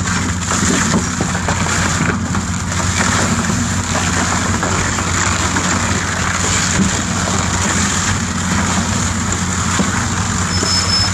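American Pulverizer 72x72 twin-shaft shear shredder running under load, its cutter discs chewing through a wheel loader tire: a steady low machine drone with continual crackling as the rubber is torn apart.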